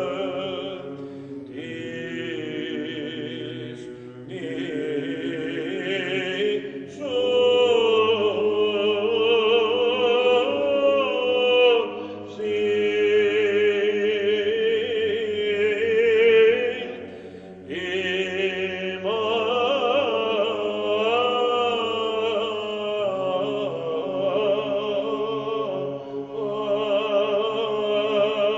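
Male group singing Byzantine chant a cappella: a slow, ornamented melody over a steady held drone (ison), in phrases with short breaks between them.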